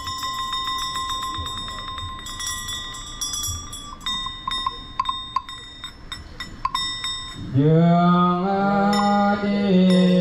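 Small Buddhist ritual hand bell rung in rapid, repeated strikes with a high ringing tone. About seven and a half seconds in it stops and a low, drawn-out Buddhist chant begins.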